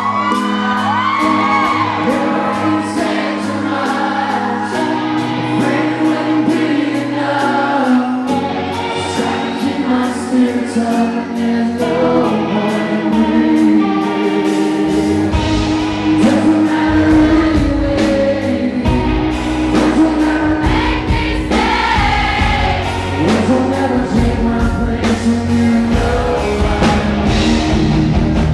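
Live rock band playing a song with a male lead vocal over guitar and drums. The low end grows fuller and heavier about halfway through.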